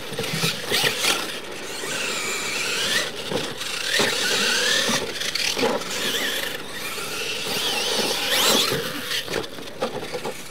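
Radio-controlled monster trucks racing on a dirt track: their motors and gears whine, rising and falling in pitch as the throttle is worked, over the hiss of tyres on loose dirt.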